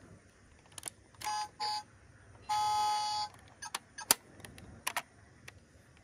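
Electronic beeps from a toy camper van's sound module: two short beeps, then one longer beep. They are followed by several sharp plastic clicks as the toy's doors are opened.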